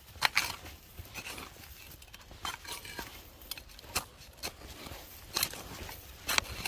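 Coleman folding shovel digging into soft, dry dirt: a series of scrapes and crunches as the steel blade bites in and throws soil, about one stroke every second or so.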